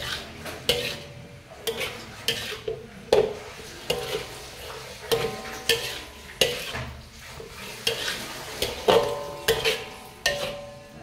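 A spatula scraping and knocking against a large metal wok as noodles are stir-fried, in irregular strokes about one or two a second, with some strokes leaving the wok ringing briefly.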